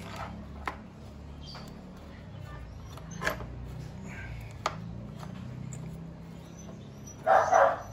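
Small clicks and taps of a license plate and its bolts being hand-tightened onto a motorcycle's plastic rear fender, over a low steady hum. A dog starts barking near the end, the loudest sound here.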